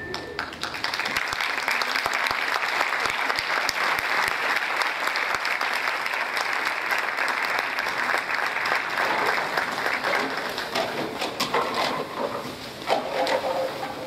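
Theatre audience applauding as the string music ends, the clapping thinning out after about ten seconds, with a few voices calling out near the end.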